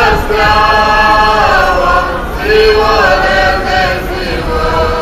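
A choir singing in long held notes that change pitch every second or so.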